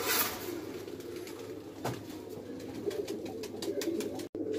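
Domestic pigeons cooing, several birds overlapping in a continuous low cooing, with a few faint clicks. The sound cuts out for an instant near the end.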